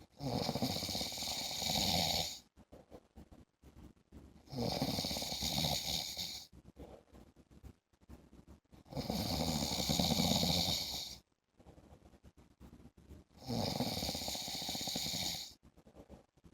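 A man snoring in a regular rhythm: four long snores, each about two seconds, coming roughly every four and a half seconds, with quiet breathing between them.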